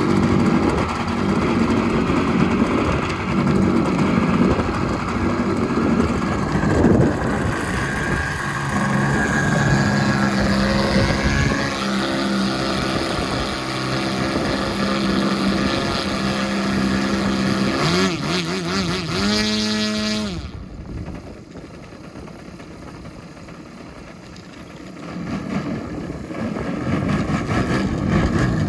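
GP123 petrol engine of a large-scale RC aerobatic plane with RE2 tuned exhausts, running on the ground with a propeller. It settles to a steady run, its revs wobble up and down briefly, and then it drops off sharply about twenty seconds in. The sound grows louder again near the end.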